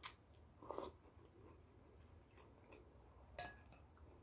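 Near silence with faint chewing of a mouthful of noodles, broken by a few light clicks at the start and about three and a half seconds in.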